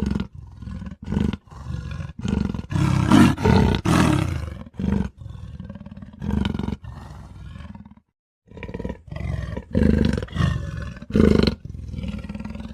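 A string of bear roars and growls made as sound effects for an animated bear: many short growls and one longer roar of about two seconds, with a short pause about two-thirds of the way through.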